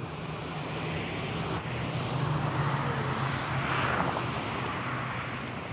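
Distant engine noise, a rushing sound over a steady low hum, swelling to a peak about four seconds in and then easing.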